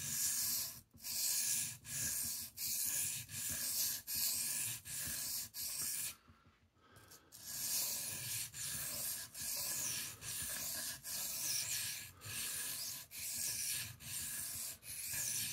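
A kitchen knife blade is pushed back and forth across a wet Shapton Kuromaku 1000-grit ceramic whetstone, making a rhythmic scraping rub on each stroke, a little over one stroke a second. There is a brief pause about six seconds in. One side of the edge is being ground to raise a burr on the other.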